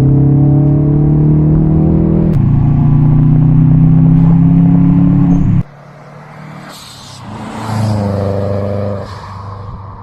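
Car engine running loud and steady, stepping up in pitch about two seconds in, then cut off abruptly a little past halfway. A quieter engine then revs up and back down and fades.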